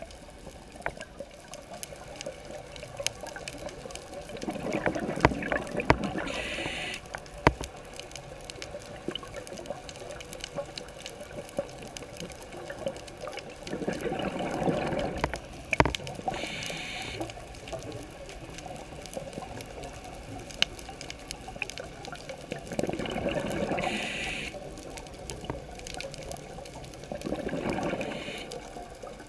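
Scuba regulator breathing heard underwater: a bubbling exhale roughly every nine seconds, each followed by a short hiss of inhaling, with scattered sharp clicks in between.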